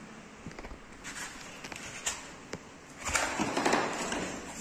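Handling of a split air conditioner's plastic indoor unit: a few light clicks and knocks, then about a second of louder rubbing and rustling about three seconds in.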